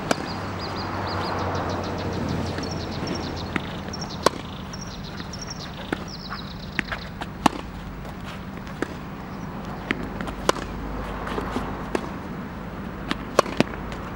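Tennis ball being struck with a racket and bouncing on an outdoor hard court: sharp single pocks at irregular intervals of about one to two seconds, over a steady low background rumble.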